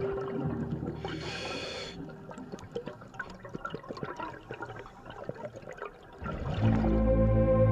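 Underwater sound picked up on a scuba dive: bubbling, moving water with many small crackling clicks and a brief hiss about a second in. Music fades in near the end.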